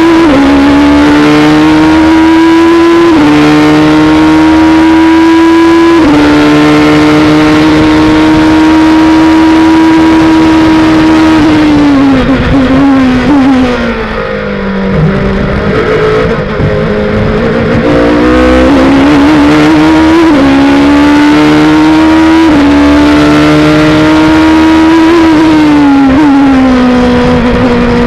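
Onboard engine sound of an HPD ARX-03a LMP1 prototype's twin-turbo V6 at full throttle, climbing in pitch with two upshifts in the first six seconds, then holding high revs. About halfway through it brakes and downshifts to a low pitch through a slow corner, then accelerates hard through four more upshifts, each a sudden drop in pitch, before lifting and downshifting near the end.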